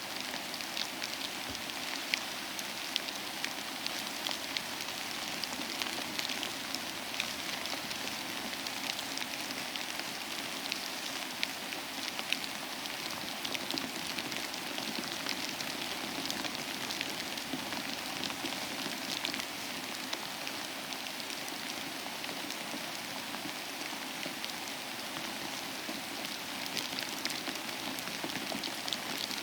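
Steady rain falling, a continuous hiss with many small drop impacts ticking through it.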